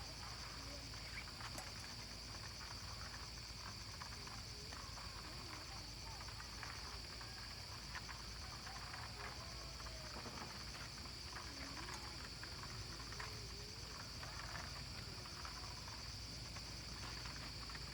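Steady chorus of insects: a continuous high buzz with a fast, even pulsing trill above it, under faint distant voices.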